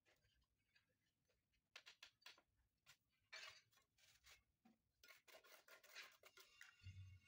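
Faint, scattered scrapes and clicks of a small hand tool working on glass mosaic tiles, in short clusters. A low steady hum comes in near the end.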